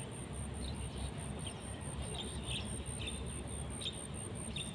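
Outdoor riverbank ambience: a thin, high pulsing tone running steadily at an even rate, a few short bird chirps, and a low steady rumble underneath.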